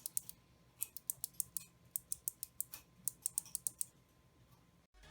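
A Kailh Box Jade clicky mechanical keyboard switch pressed and released again and again close to the microphone, giving sharp, high clicks in quick pairs: a click on the downstroke and another on the upstroke. The clicking stops a second or so before the end.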